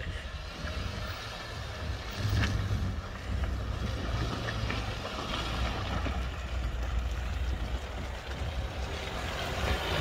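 Nissan Navara pickup driving through mud, its engine a low steady rumble that grows louder near the end as it nears, with wind noise on the microphone.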